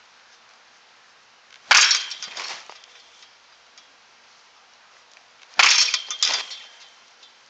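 Baseball bat striking a tossed ball twice, about four seconds apart, each a sharp hit with a short ring. Each hit is followed about half a second later by a second, softer impact.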